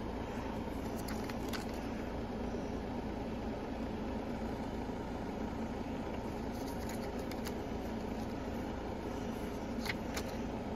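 Steady low machine hum in the background, with a few faint soft ticks of paper booklet pages being turned.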